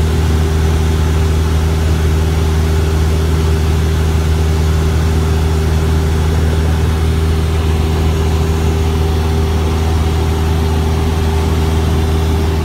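Single-engine Cessna's piston engine and propeller droning steadily in level flight, heard from inside the cabin.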